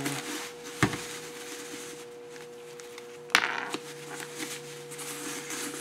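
A cloth drawstring helmet bag being handled on a wooden workbench, with the helmet inside it. There is a sharp knock about a second in and a louder one past three seconds, followed by fabric rustling as the drawstring is worked loose. A faint steady hum runs underneath.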